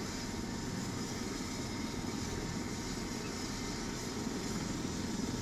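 Air ambulance helicopter running steadily on the landing pad after touchdown, its engines and rotor winding down toward shutdown.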